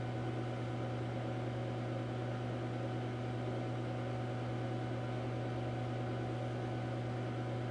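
Steady low hum with an even hiss over it, the constant background noise of the recording, unchanging and with no other events.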